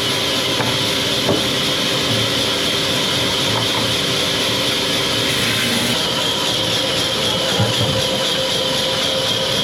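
Sawmill machinery running steadily, a constant mechanical hum and hiss, with a couple of light knocks.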